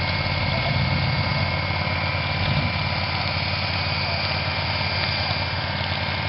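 An engine running steadily at idle, with a constant low hum and a faint steady whine above it.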